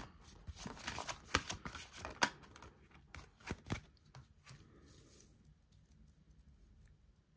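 A deck of oracle cards being shuffled by hand: a run of quick card snaps and clicks for the first four seconds or so, then only faint handling.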